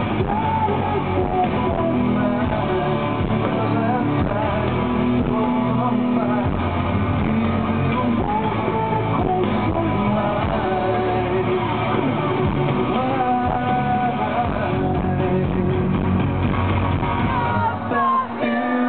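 Amplified live rock band playing: electric guitars over bass and drums, heard from the crowd through the festival PA. The bass and drums drop away briefly near the end.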